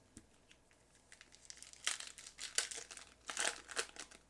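A foil trading-card pack wrapper being torn open and crinkled by hand, a quick run of crackling rustles that starts about a second and a half in.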